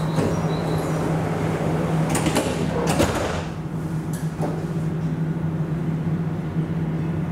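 Alstom Citadis tram standing at a stop with a steady electrical hum from its onboard equipment. About two to three seconds in, a sliding passenger door moves with a short clatter.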